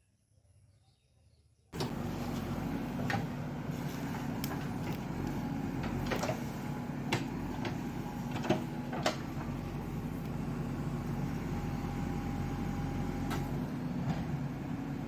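Quiet at first, then a JCB backhoe loader's diesel engine cuts in abruptly about two seconds in and runs steadily, with a handful of sharp metallic knocks over the next several seconds.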